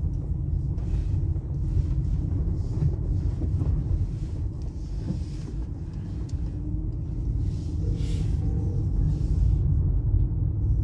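Steady low rumble of a car driving at low speed through city streets, heard inside the cabin: road and engine noise.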